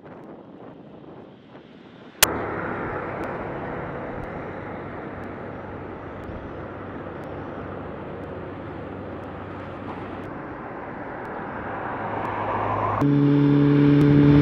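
Steady road traffic noise that grows louder over the last few seconds, then a motorcycle passing close near the end, its engine a loud steady note. A single sharp click about 2 s in.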